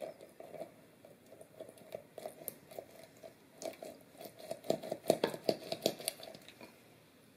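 A lemon half twisted and pressed down on a plastic reamer juicer, its pulp crushing against the ridges: a rapid, irregular wet crackle that grows denser and louder about four to six seconds in, then dies away.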